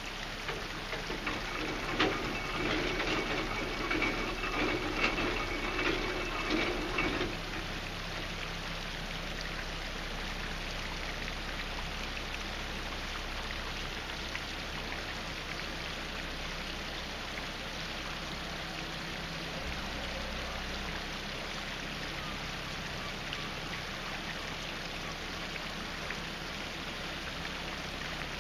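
Steady rush of water in a canal lock, with a narrowboat's engine running slowly underneath. For about six seconds near the start a louder clicking rattle with a steady whine sits on top.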